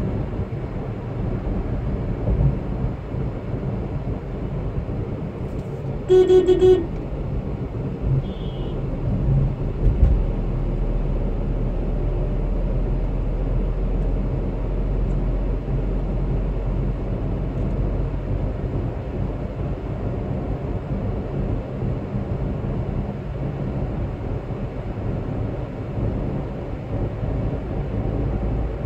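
A car driving along a highway, with steady engine and tyre rumble. About six seconds in, a vehicle horn gives one short toot lasting under a second.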